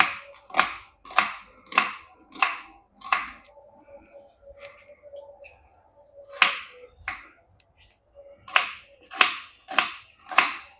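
Knife cutting onions on a cutting board: a run of six sharp strokes at a little under two a second, a lone stroke in the middle, then four more near the end. A faint steady hum runs underneath.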